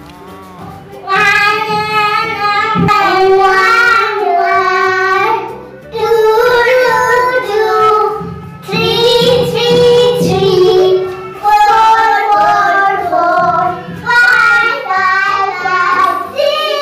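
A child singing a song over backing music, in sung phrases of a few seconds each with short breaks between them.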